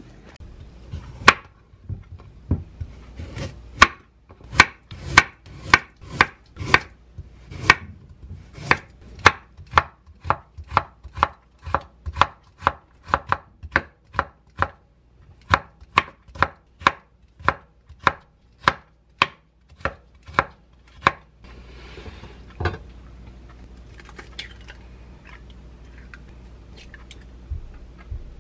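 Kitchen knife slicing carrots into thin matchsticks on a wooden cutting board: a long run of sharp, even knocks, about two a second, that stops about three quarters of the way through, followed by a few softer knocks.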